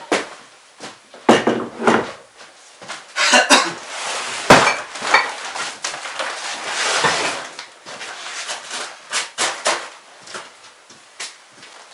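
Gear being taken off and hung up in a small plank-walled hut: a backpack and equipment knocking against the board wall and hooks several times, with rustling of stiff clothing and footsteps on the wooden floor.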